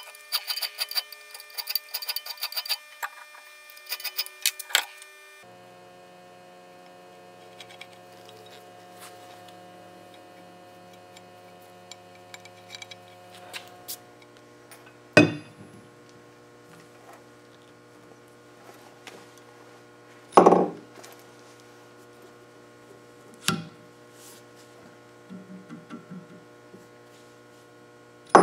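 Rapid metallic ticking and ringing from the C-clamp's screw and swivel pad working against a steel block, for about five seconds. It stops abruptly and gives way to a steady low hum, with four sharp knocks from the heavy steel clamp and block being handled on the workbench; the last knock, near the end, is the loudest.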